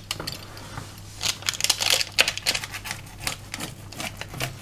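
Pizza cutter wheel rolling through a crisp baked cheese-and-egg Flammkuchen base on baking paper, making an uneven run of crunchy clicks and crackles.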